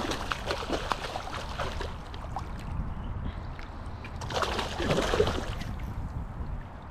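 Water splashing and sloshing close by as a hooked coho salmon thrashes at the surface near the bank, with a louder splash about four and a half seconds in.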